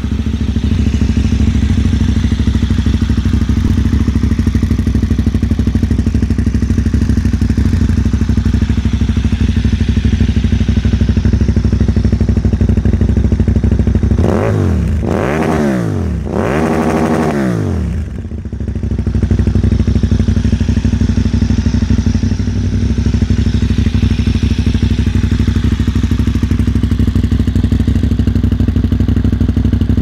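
KTM 990 Super Duke's V-twin engine idling steadily through LeoVince SBK Oval Evo II slip-on silencers, with three quick throttle blips about halfway through before it settles back to idle.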